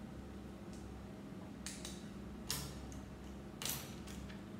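Small plastic Lego pieces clicking and clacking as they are handled and fitted together, a few sharp clicks over a steady low room hum, the loudest about two and a half seconds in and again near the end.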